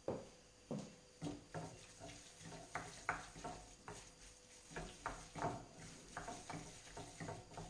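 A hand squeezing and mixing a soft mash of boiled potatoes, nduja and parsley in a glass bowl, making short, irregular squishes and light taps, two or three a second.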